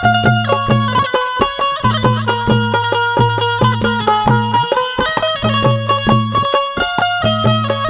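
Instrumental interlude of a Haryanvi folk bhajan: a melody instrument plays held and moving notes over a low repeating bass figure and a steady percussion beat, with no singing.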